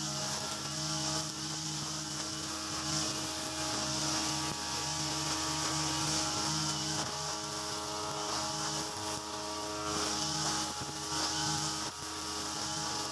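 Mitsubishi TU43 two-stroke brush cutter running steadily at cutting speed, its nylon-line trimmer head whipping through grass with a constant high hiss.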